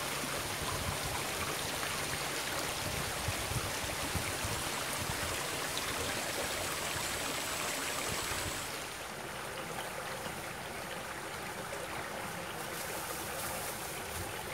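Shallow stream flowing over rocks: a steady rush of water that drops to a softer level about nine seconds in.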